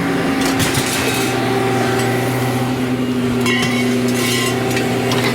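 An engine running steadily at a constant speed, with scattered metallic clinks and clatters that cluster around the middle.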